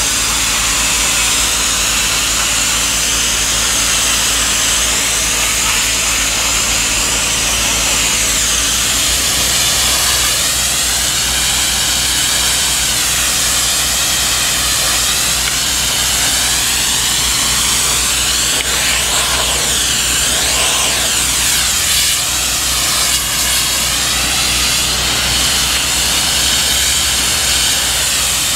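Superheated steam hissing steadily from the lance of a Ghibli DHR 8 mobile steam generator as it sprays shopping trolleys, with a low steady machine hum underneath. The hiss wavers in tone as the lance is moved about.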